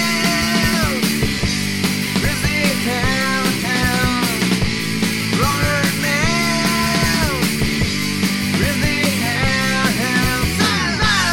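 Background rock music with a steady beat and a melodic lead line.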